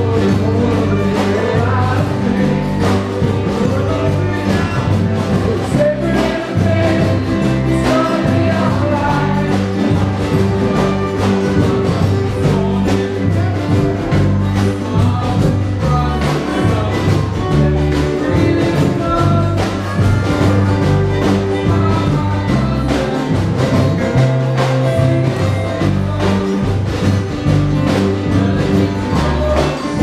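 Live carnival band music: a large drum section with big surdo-style bass drums beating a steady rhythm under strummed guitars and singing.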